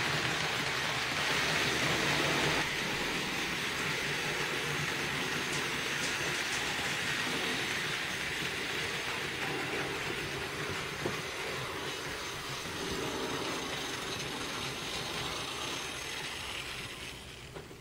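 HO-scale model trains running on the layout's track: a steady whir of small motors and metal wheels rolling on the rails, fading out near the end.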